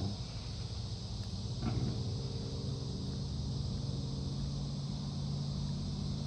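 A steady engine drone: a low hum with a few even overtones, which becomes fuller about two seconds in after a faint short knock.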